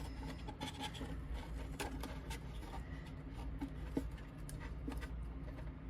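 Hands handling a paper box and pressing a strip of vinyl onto it: scattered light taps, rubs and rustles over a steady low hum.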